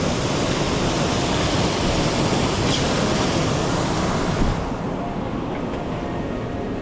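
Mountain stream water rushing steadily. About four and a half seconds in, the rush loses its hiss and turns duller.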